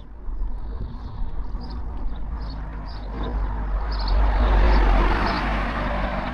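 A vehicle passing by: its rumble and road noise swell to a peak about four to five seconds in and then ease off, while small birds chirp throughout.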